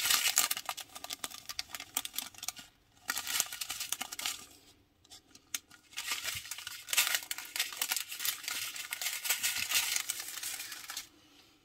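Strips of small plastic bags of resin diamond-painting drills crinkling and rustling as they are handled, the loose drills shifting and clicking inside. It stops briefly about three seconds in, pauses for about a second and a half around the middle, and falls quiet near the end.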